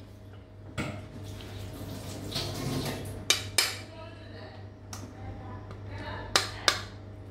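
A metal serving spoon scooping biryani out of a metal cooking pot onto a plate: soft scraping with a handful of sharp clinks of the spoon against the pot, two close pairs of them about three and six and a half seconds in, over a steady low hum.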